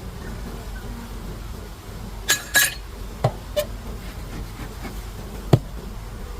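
A few sharp clinks and knocks of hard beekeeping gear being handled, as a hive is being opened: a quick cluster of clinks a little over two seconds in, two single ticks, then one louder knock near the end.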